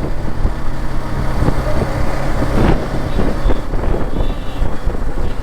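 Motorcycle engine running at steady low revs amid road traffic noise.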